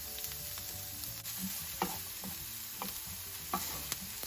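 Diced shallots sizzling in rendered pork fat in a nonstick frying pan. A wooden spatula stirs them, scraping and tapping against the pan a few times in the second half.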